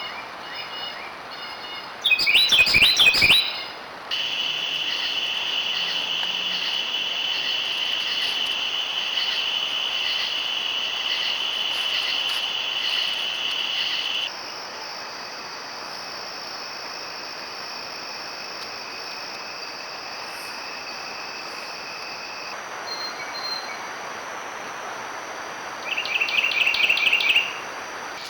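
Steady chorus of crickets and other insects, with its pitch and level changing abruptly a few times where separate trail-camera clips are joined. Two short bursts of rapid bird chirps come about two seconds in and near the end.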